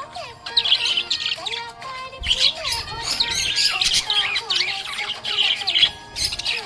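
Budgerigars chirping and warbling in quick, continuous bursts, with background music.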